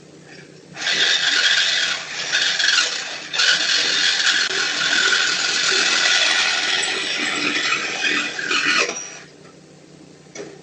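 Power tool cutting metal under a car: a thief sawing through the exhaust to take the catalytic converter. The cutting starts about a second in, dips briefly twice, runs for about eight seconds and then stops.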